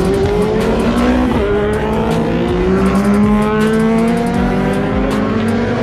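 Road-racing motorcycles accelerating hard past the roadside, engine pitch climbing. The pitch drops briefly about a second and a half in, then climbs steadily again.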